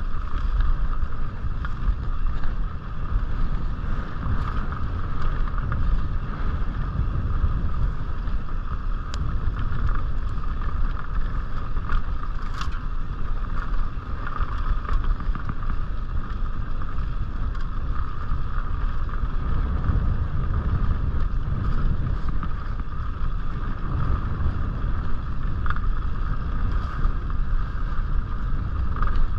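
Mountain bike rolling fast down a dirt singletrack: wind buffeting the microphone and tyre rumble, with a steady high hum and a few sharp clicks and rattles from the bike over bumps.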